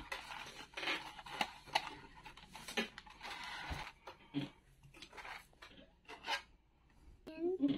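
Clear plastic blister packaging crinkling and clicking while small action-figure parts are handled and pried out of the tray, a scatter of short crackles and taps.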